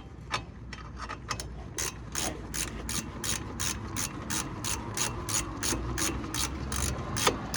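Hand ratchet wrench clicking as a brake bolt is run down: a few scattered clicks, then a steady series of about two to three clicks a second from about two seconds in.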